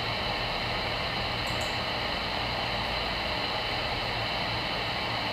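Voyager CB radio receiver tuned to channel 22, giving a steady static hiss on an idle channel with no one transmitting. Two faint ticks come about one and a half seconds in.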